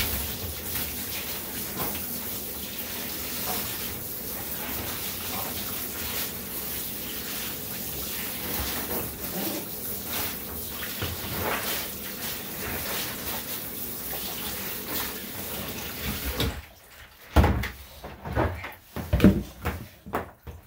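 Handheld shower sprayer running steadily, spraying water onto a dog and into a bathtub. About three-quarters of the way through the water cuts off, followed by a few sharp knocks and thumps.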